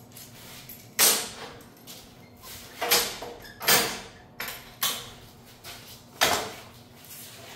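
Locking C-clamps being set and snapped shut on steel flat bar, making about five sharp metal clanks, each with a short ring, as the bar is clamped down for cutting.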